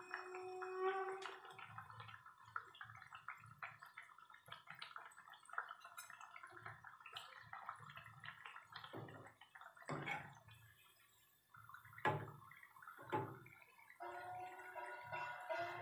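Malpua batter deep-frying in hot oil, bubbling and crackling, with several sharp knocks of a slotted metal spoon against the pan in the later seconds as the pancake is turned. A faint tune comes in near the end.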